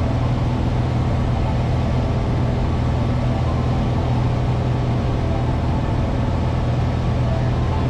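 Single-engine propeller airplane's engine and propeller droning steadily in cruise, with the rush of airflow, heard from inside the cockpit.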